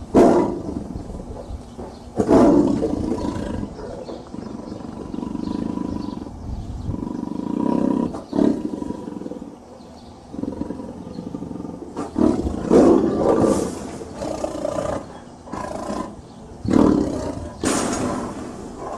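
Tiger roaring: several separate loud roars, one starting right away, with a longer drawn-out bout in the middle.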